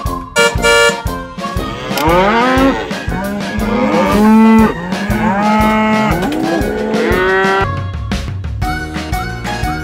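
Cow mooing used as the voice of a cartoon tractor: several long, low calls, each swooping up and down in pitch, with music under it and music taking over near the end.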